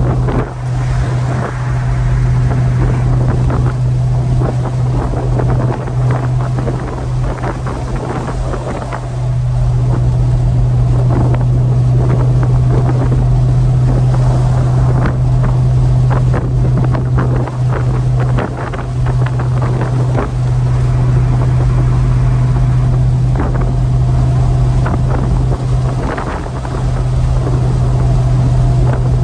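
1965 Pontiac GTO's V8 engine running at a steady speed, a deep, even drone, with wind noise on the microphone and occasional short knocks.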